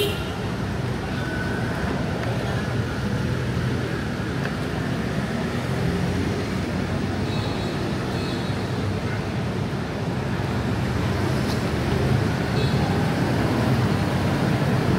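Dense city street traffic: a steady, unbroken rumble of vehicles passing on the road.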